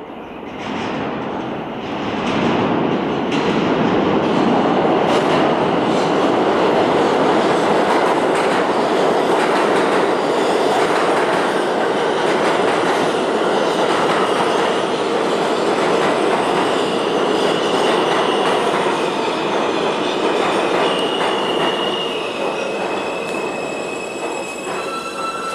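An R160 subway train pulling into an underground station, its wheels and motors running loud and steady on the rails. In the last several seconds, high-pitched squeals from the wheels and brakes rise over it as the train slows to a stop.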